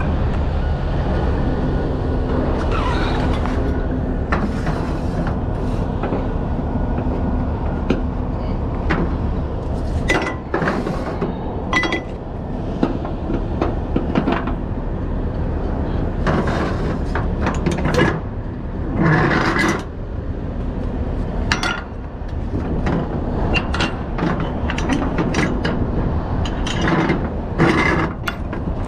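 Flatbed cargo straps being handled: nylon webbing pulled and rubbed over the load, with scattered clicks and clinks of metal hooks and strap winches on the trailer rail. A steady low engine hum runs underneath and drops away about ten seconds in.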